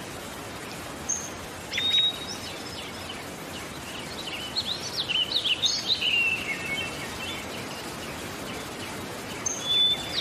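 Birds chirping over a steady hiss: a couple of short high calls about two seconds in, a busier run of twittering calls in the middle, and more calls near the end.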